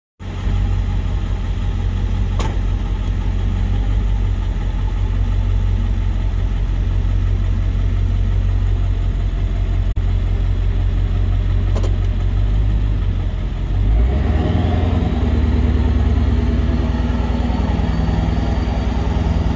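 Pickup truck engine idling, heard from the cab with its steady low rumble. About fourteen seconds in the engine note rises and stays higher, with a faint climbing whine.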